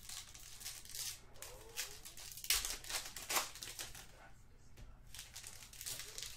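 Trading-card pack wrappers crinkling and tearing as they are ripped open by hand, in a series of irregular crackles, the loudest a little past halfway.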